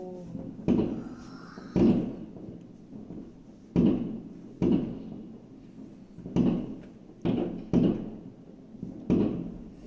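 New Year fireworks going off: about eight dull booms at irregular intervals, each dying away with a short echoing tail.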